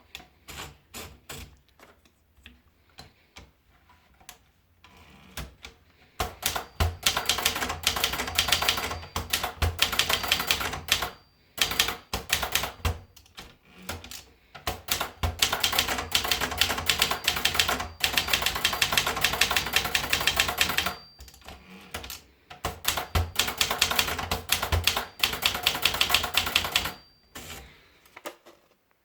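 Vendex 500 TR typewriter being typed on: a few slow, scattered keystrokes at first, then several long runs of fast typing separated by short pauses. A short ringing tone, typical of the margin bell at the end of a line, sounds near the end of three of the runs.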